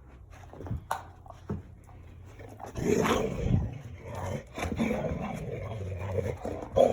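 Dalmatian making playful, grumbling growl-like 'gremlin' noises. A few soft knocks come first, then the grumbling starts about three seconds in and carries on.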